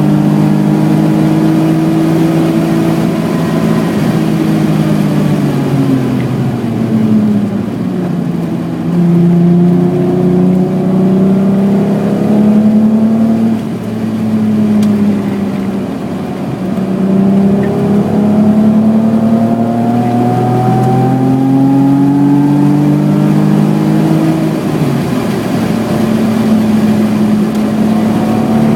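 BMW E28's 3.6-litre engine pulling hard at track speed. It climbs in pitch through the revs, then drops back sharply several times as the car brakes and changes gear, and it runs steadier near the end.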